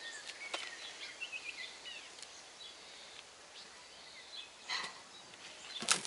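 Hands rummaging through loose potting mix in a wheelbarrow, with two louder brief rustles near the end. Small birds chirp in the background.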